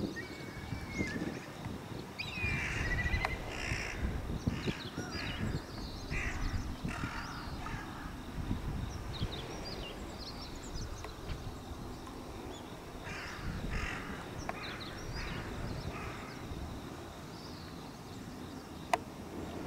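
Crows cawing in several runs of harsh calls, with small birds chirping high and thin throughout and a low rumble underneath. A single sharp click near the end.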